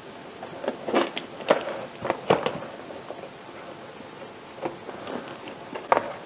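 High-hydration ciabatta dough being stretched and folded by wet hands in a plastic tub with loose water in it: a handful of short, irregularly spaced wet squelches and drips as the dough is lifted and dropped back.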